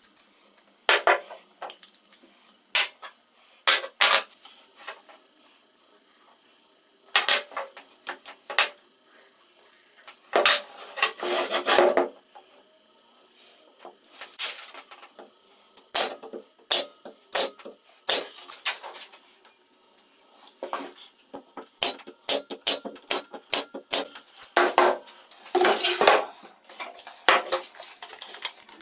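Plywood workpieces being handled on a workbench: scattered sharp wooden knocks and clicks as parts are fitted together and set down, with a couple of short stretches of rubbing and scraping, near the middle and again near the end.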